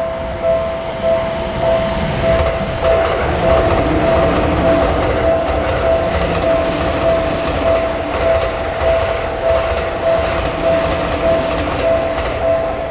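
Japanese railroad crossing alarm ringing its steady, evenly pulsed ding-ding, about two strikes a second, while a train passes, its rumble and wheel clatter swelling a couple of seconds in.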